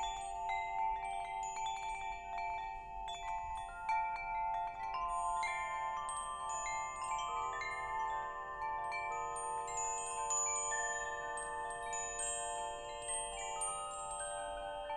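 Wind chimes ringing: many tones struck at irregular moments, each ringing on long after it is struck, so they overlap.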